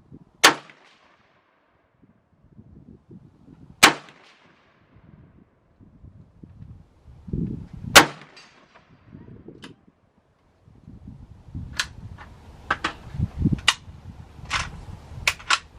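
Three single rifle shots from a Palmetto State Armory AK-pattern rifle, fired slowly about four seconds apart, each a sharp crack with a reverberant tail. From about twelve seconds in comes a quick series of fainter sharp clicks.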